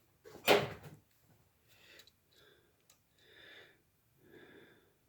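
A man breathing close to the microphone: a row of soft, slow breaths. About half a second in there is one louder, short rush of air.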